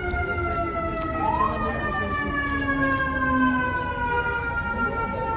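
Emergency vehicle siren wailing, its pitch sliding slowly and steadily downward, over a low rumble of traffic.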